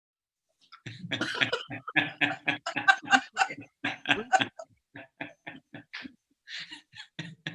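A person laughing: a long run of quick bursts of laughter, then quieter, sparser chuckles over the last few seconds.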